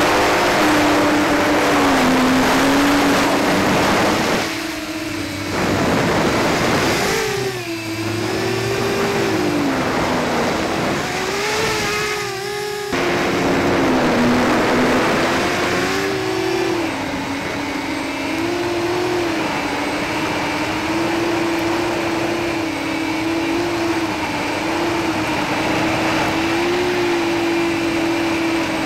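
Hubsan H501SS quadcopter's brushless motors and propellers running on a 3S 11.1 V battery, recorded from on board. The whine wavers up and down in pitch with the throttle, over a rush of air noise on the microphone. The throttle drops briefly about four to five seconds in and again near thirteen seconds.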